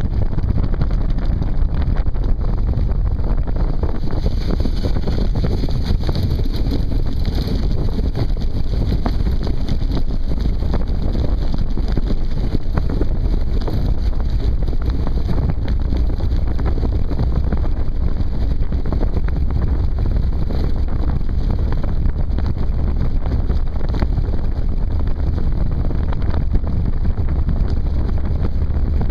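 Wind buffeting the microphone of a camera mounted on a moving land yacht, a steady low rumbling noise.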